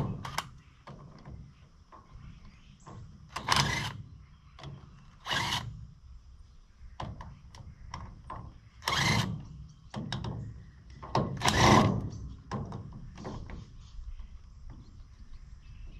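Irregular knocks and clunks from parts being handled, with four louder clunks spread a couple of seconds apart.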